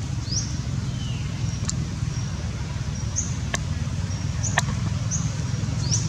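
Outdoor ambience: a steady low rumble with short, high, rising chirps about once a second and three sharp clicks.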